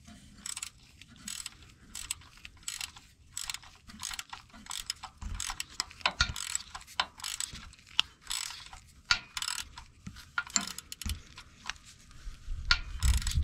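Hand ratchet clicking in short, irregular runs of strokes while tightening the new starter's mounting nut by hand.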